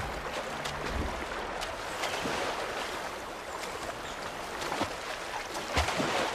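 Flowing river water: a steady rushing wash with scattered short knocks.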